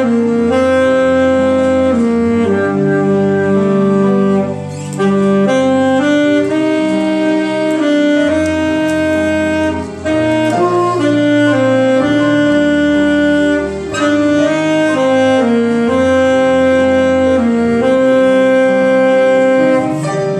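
Saxophone playing a slow melody of long held notes over a sustained instrumental accompaniment.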